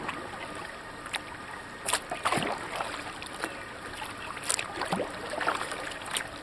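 Kayak paddles dipping and pulling through water: irregular splashes, with drips coming off the blades.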